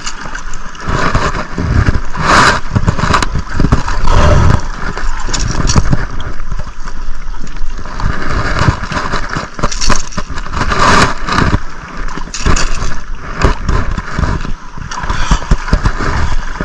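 Wind gusting on an action camera's microphone, with scattered knocks and scrapes as a hooked fish is handled and the lure is worked out of its mouth with pliers.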